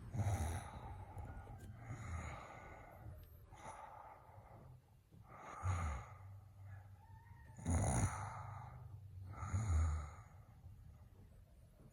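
A person snoring: a series of rattling snores, one about every two seconds.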